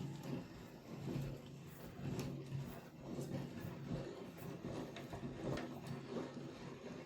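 Bench vise screw being spun to back off a nut held in a socket: faint metal-on-metal rubbing and sliding in repeated strokes about once a second, with a few light ticks.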